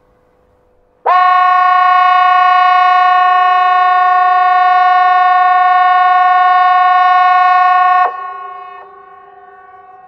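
Hesa Fredrik civil defence alarm horn sounding one steady, loud tone that starts abruptly about a second in, holds for about seven seconds and cuts off sharply, leaving a fainter echo of distant horns that fades away. It is one seven-second blast of the 'Important message to the public' test signal, which repeats seven seconds on, fourteen seconds off.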